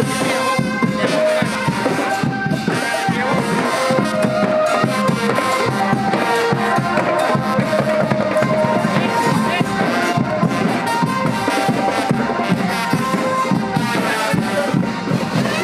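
Upbeat music with drums under a held, reedy wind and brass melody.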